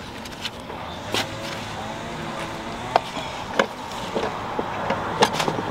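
Hand work on metal parts: sharp clicks and knocks at irregular intervals, over a steady low hum.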